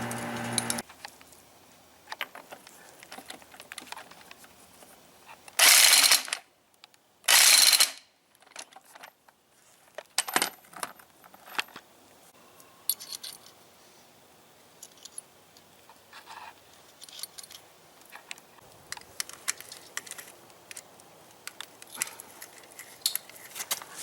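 Metal motorcycle clutch parts and tools being handled: scattered light clinks and clicks, with two louder noisy bursts of about half a second each, roughly six and seven and a half seconds in.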